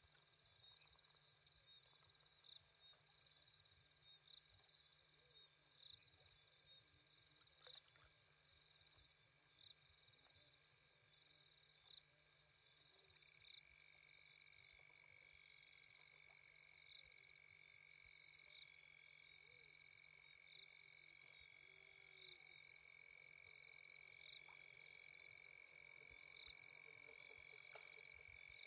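Faint night chorus of insects, crickets, chirping in an even high-pitched pulse about three times a second. About halfway through, a second insect joins with a steady, continuous, lower trill.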